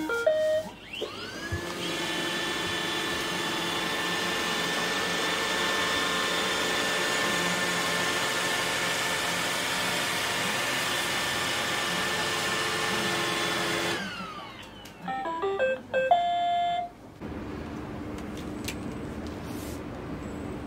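Roomba robot vacuum chiming a short beep tune, then its vacuum motor spinning up with a rising whine, running steadily for about thirteen seconds and winding down, followed by another short run of beeps. In the last few seconds a steady low hum takes over.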